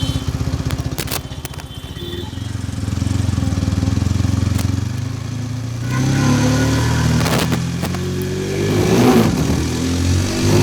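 Hero Xtreme 160R 4V Pro's single-cylinder engine being ridden at low speed. Its note pulses evenly at first, then builds and shifts pitch as the bike picks up speed, climbing again near the end.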